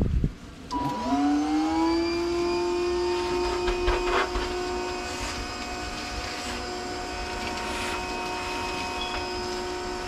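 A bee vacuum switches on: its motor spins up with a rising whine, then runs at a steady pitch while the hose sucks honey bees off the comb. A few brief clicks sound over the motor.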